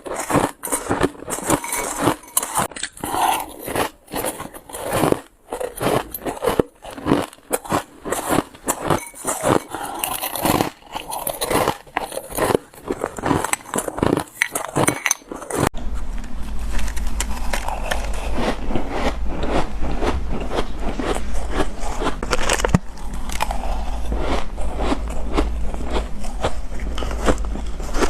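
Shaved ice bitten and crunched close to the microphone in rapid, irregular crunches. About halfway through, a cut to another recording adds a steady low hum beneath the continuing crunching.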